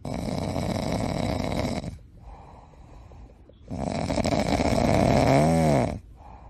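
Dog snoring: two long rasping breaths of about two seconds each, with a quieter pause between them. The second breath ends in a short pitched warble.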